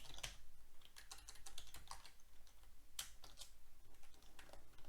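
Typing on a computer keyboard: an irregular run of keystrokes as code is entered, with a couple of sharper key hits just after the start and about three seconds in.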